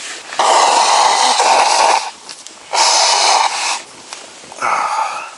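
A man blowing his nose into a tissue: three loud blows, the first and longest lasting about a second and a half.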